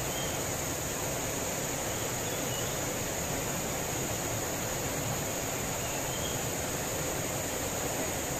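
Fast river rapids rushing steadily over rocks, with a steady high-pitched insect drone from the forest.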